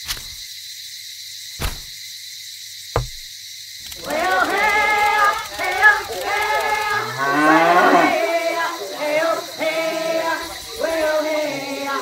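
A few sharp clicks over a quiet start. Then, about four seconds in, high-pitched cartoon-style character voices chatter and sing without words, with one rising glide near the middle.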